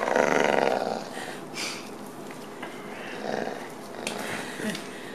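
Weimaraner growling while tugging on a cloth toy held in its teeth, loudest in the first second and then quieter.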